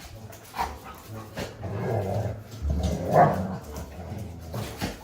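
Dog barking in short calls, the loudest bark about three seconds in.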